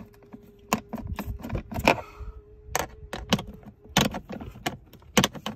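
Irregular metallic clicks and clinks of a socket wrench as a 6 mm socket on an extension is worked at a 5 mm bolt head on a VW Transporter T5's heater blower resistor. The socket is too large for the bolt and does not grip.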